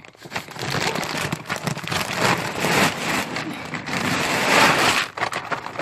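Horse feed pouring out of a torn feed bag into a feed bin: a dense rattling rush of loose pellets, loudest about four and a half seconds in.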